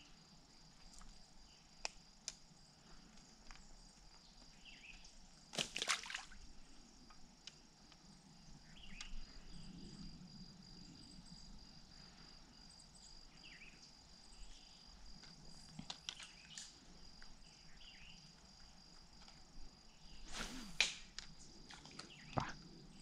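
Faint steady high-pitched insect trill, with two brief swishing noises, one about six seconds in and one near the end.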